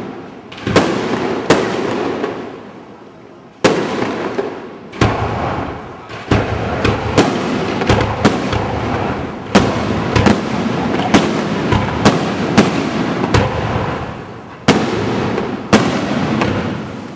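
Aerial fireworks display: shells bursting with sharp bangs, one after another, each trailing off in crackle and echo, coming thick and fast in the middle stretch.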